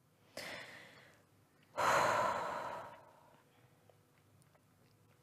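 A woman breathing out heavily twice: a short, soft breath near the start, then a longer, louder sigh about two seconds in that fades away.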